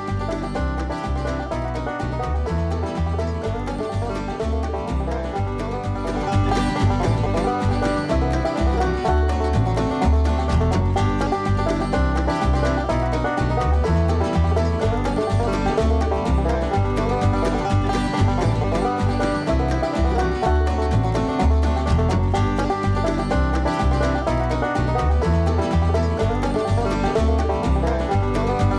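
Music with a steady, pulsing bass beat, getting louder about six seconds in.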